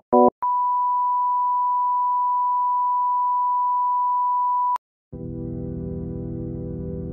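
A short buzzy electronic blip, then a steady high-pitched beep held for about four seconds that cuts off with a click. After a brief silence, a low synthesizer chord comes in and holds.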